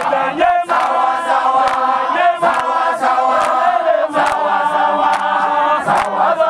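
A crowd of men and women singing and chanting together, repeating one short phrase over and over.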